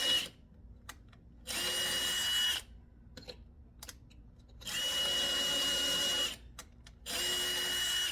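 Power drill running in short bursts with a steady high whine, stopping and starting: it runs briefly at the start, then three more times for a second or so each, drilling a new screw hole for a door lock's strike plate.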